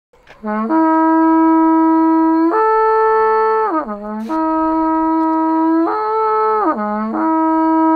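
A long white ceremonial trumpet, a straight horn about 1.5 m tall, blown in long held notes. It gives a brief low note, a long middle note, then a higher note that slides down to the low one, and plays this call twice. The call is a Holy Week signal announcing the Passion, death and resurrection.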